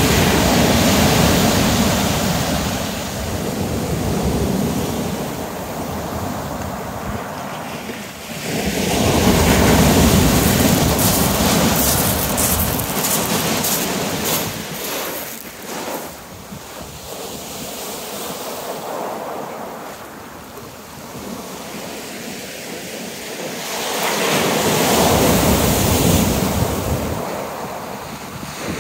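Surf breaking on a shingle beach, the wash swelling and fading in three slow surges, at the start, about ten seconds in and about twenty-five seconds in.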